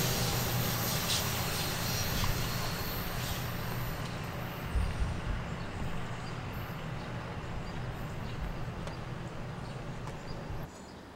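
Diesel-hauled commuter train rolling away, its low rumble slowly fading. The sound drops off suddenly near the end.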